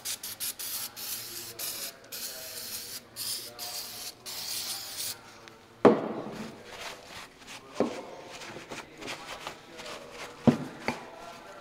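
Aerosol parts-cleaner can spraying in a rapid string of short hissing bursts for about five seconds. Then three sharp knocks, the first the loudest, with a rag rubbing over greasy rocker arm parts between them.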